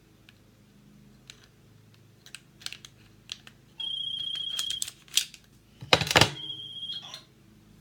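Small plastic and metal clicks from an airsoft gas blowback M1911 pistol's parts being handled as its slide is fitted back onto the frame rails. A steady high electronic beep sounds for about a second near the middle, then a loud noisy burst about six seconds in is followed by a shorter beep.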